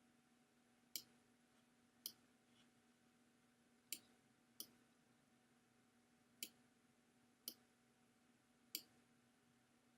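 Computer mouse clicking seven times at irregular intervals, short sharp clicks against a faint steady hum.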